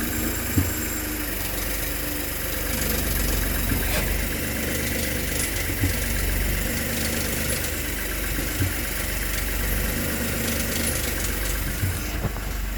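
Volkswagen Virtus 200 TSI three-cylinder turbo engine idling steadily, with a few short knocks at irregular intervals. This is the strange noise the owner cannot identify.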